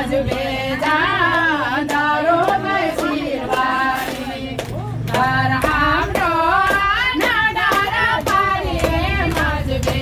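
Voices singing a song, with steady hand claps keeping the beat at about three claps a second.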